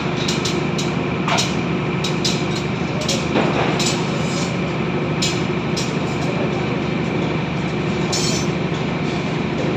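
Construction machinery running with a steady, loud mechanical drone, with irregular sharp metallic clanks and knocks over it.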